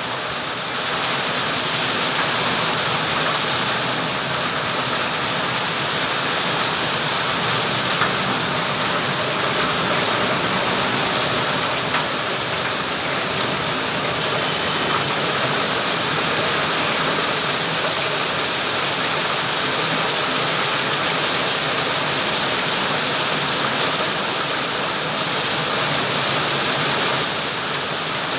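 Heavy rain pouring down onto a paved street and splashing on the wet road, a dense steady hiss.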